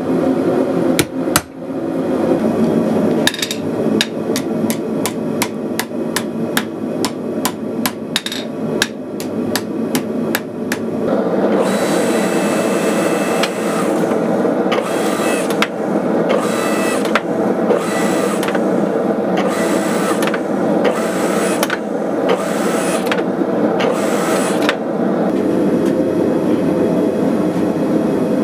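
Hand hammer blows on hot steel, over a steady rushing noise from the shop. The strikes come in quick runs for the first ten seconds or so, then about one a second.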